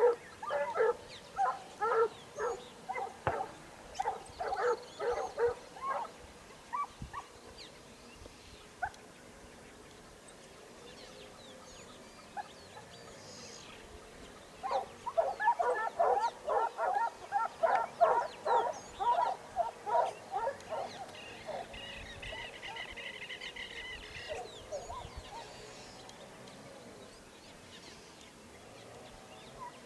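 A pack of hounds baying as they run a hare's trail: a quick run of repeated barks over the first six seconds, a lull, then another run of barks from about fifteen to twenty-one seconds in.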